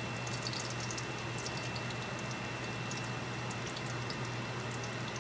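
Hot cooking oil sizzling in a frying pan, a steady hiss with many small irregular crackles and pops, over a steady low hum.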